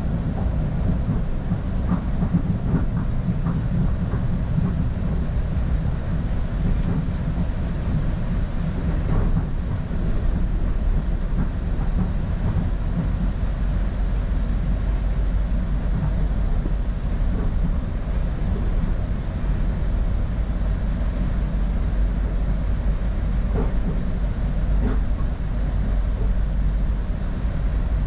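Northstar commuter train running along the track: a steady low rumble of wheels on rail, with a few faint clicks from the rails.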